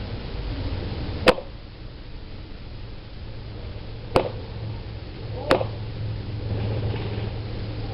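Three sharp single shots from an airsoft gun: one about a second in, then two close together past the middle, over a steady low rumble.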